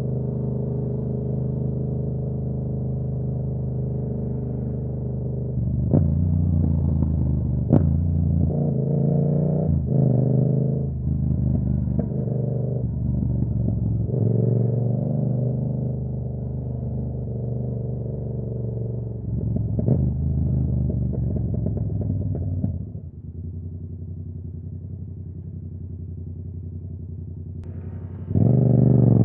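Yamaha R7 motorcycle's parallel-twin engine running at steady road revs, with a few sharp ticks along the way. About three-quarters through it drops to a quieter, lower hum, then revs up steeply just before the end.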